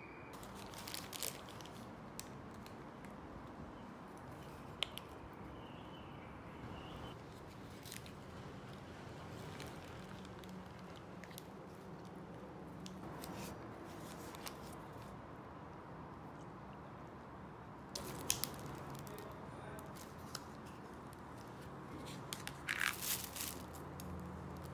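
Paper food wrapper and plastic bag crinkling and rustling as they are handled, in a few short bursts over a faint steady background.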